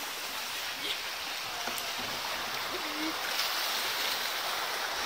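Shallow rocky river riffle with white water rushing over stones, a steady, even rush.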